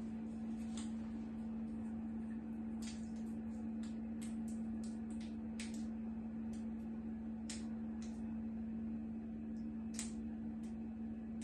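A steady low hum, with scattered sharp clicks and small crackles from ingredients being broken and handled over a cooking pot.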